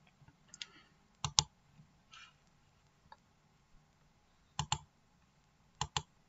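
Three pairs of sharp clicks, about a second and then three seconds apart, each pair a computer button pressed and released, as when clicking through presentation slides.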